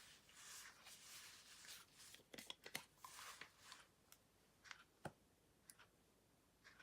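Slime being squeezed and stretched by hand, faint: soft squishy rustling at first, then a scatter of sharp little clicks and pops through the middle.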